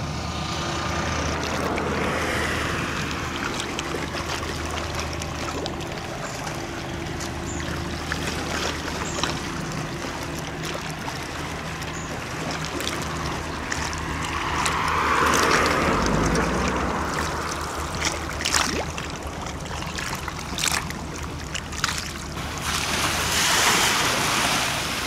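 Small waves washing against the shore and wind gusting on the microphone, over a steady low engine hum that fades out in the later part.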